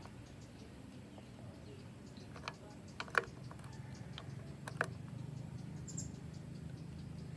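A few faint small clicks and taps over a low steady hum, two pairs close together about three and about five seconds in.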